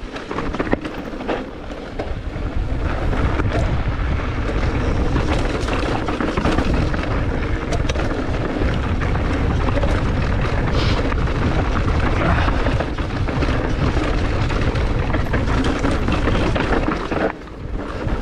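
Mountain bike rolling fast over a loose gravel trail: tyres crunching on stones and the bike clattering, under heavy wind rumble on the camera's microphone. The noise drops briefly near the end.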